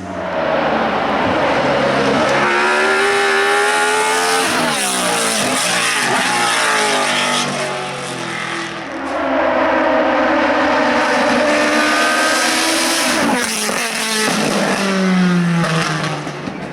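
Hill-climb race car engine at high revs, its pitch climbing and then dropping off sharply several times as it changes gear and brakes.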